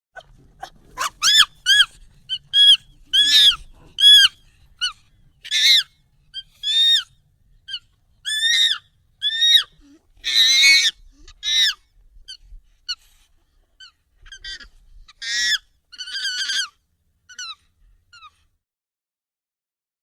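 A monkey giving a rapid series of short, high calls, each rising and falling in pitch, about two a second, sped up and pitched up. The calls thin out and stop shortly before the end.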